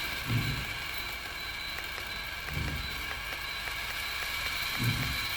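Smart toilet's bidet spray running in women's washing mode: a steady water hiss with a faint high hum from the unit. Three brief low surges come about two seconds apart.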